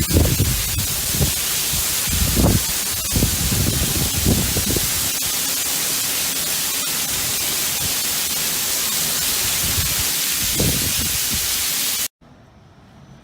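Typhoon wind and driving rain as a loud, steady hiss, with gusts buffeting the microphone in low rumbles. It cuts off suddenly near the end.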